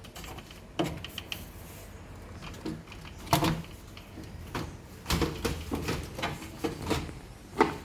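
Plastic washing machine panel parts being handled and slotted into place, with scattered knocks and clicks, the loudest about three and a half, five and seven and a half seconds in.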